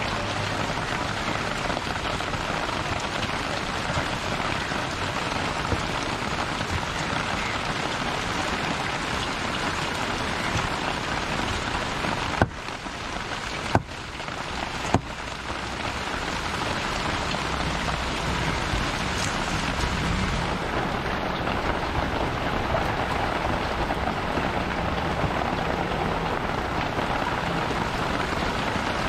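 Steady rain falling, an even hiss of drops. About halfway through come three sharp knocks.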